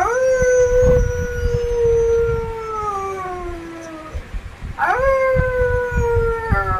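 A boy imitating a wolf's howl with his voice: two long howls, each rising quickly at the start, then held and sliding slowly down in pitch. The second begins about five seconds in.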